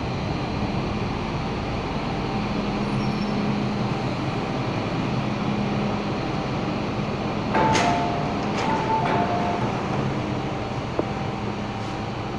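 MTR M-Train electric multiple unit at a station platform with a steady running hum. About seven and a half seconds in, the train doors and platform screen doors open with a sudden rush, and a two-tone door chime sounds for about two seconds.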